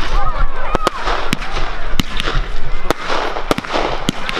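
Fireworks display: a string of sharp bangs from exploding shells at uneven intervals, about nine in four seconds, over a steady crackle and hiss.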